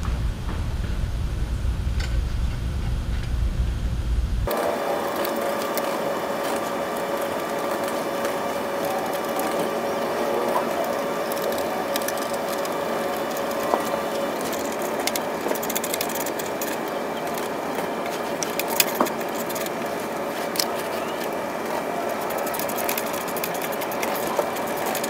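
Ratchet wrench clicking in short runs, with scattered sharp tool clicks and knocks, as the carburetor is bolted back onto a Briggs & Stratton lawn mower engine. Under it is a steady background hum, which turns abruptly to a higher hiss about four seconds in.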